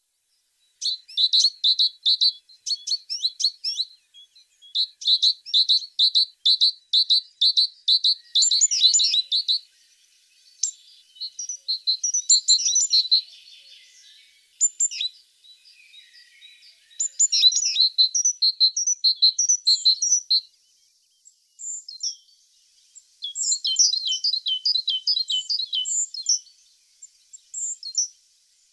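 A tit singing: phrases of fast, high repeated notes, each run lasting a second or several, separated by short pauses, with softer twittering in the middle.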